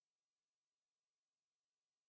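Near silence: the sound track is essentially empty, with no audible sound.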